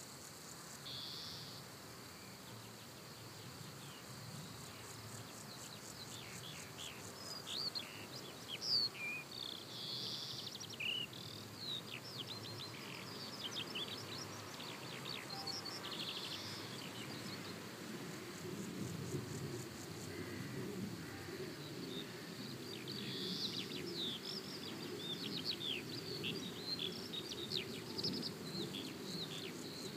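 Small birds chirping and singing in quick, high, rising and falling calls, busiest in the middle and the last third, over a low steady outdoor background noise.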